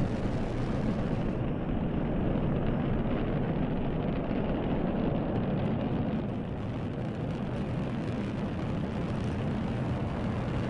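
Delta IV Heavy rocket's three RS-68A engines at full thrust just after liftoff: a steady, deep rumbling roar that eases slightly about six seconds in.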